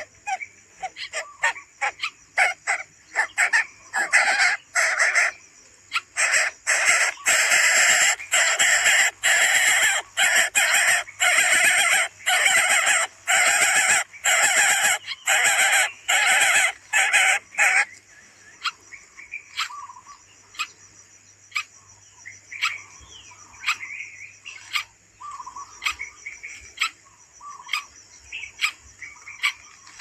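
Coucal nestlings calling in a fast series of short, harsh, hiss-like calls, about two a second, loud for the first half and then fainter and sparser. A steady high whine runs underneath.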